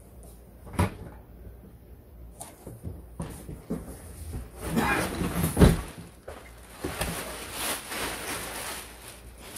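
Stroller parts being pulled out of a cardboard box: a sharp knock about a second in, then plastic wrapping rustling and crinkling, with a heavy thump around the middle.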